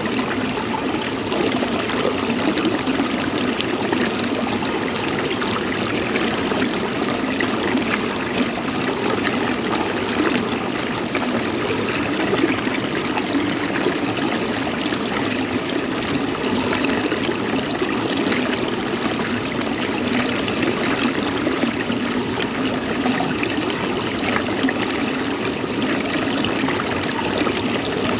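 Running water, flowing steadily without a break.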